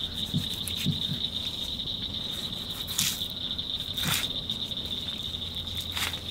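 Crickets chirring in a steady high drone, with a few brief clicks from the boar's hide being peeled back.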